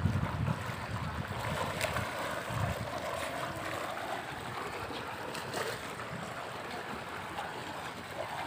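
Pool water sloshing and splashing as a small child wades through it, over a steady rush of water bubbling up from a jet in the pool. Low wind rumble on the microphone in the first moment and again briefly a couple of seconds in.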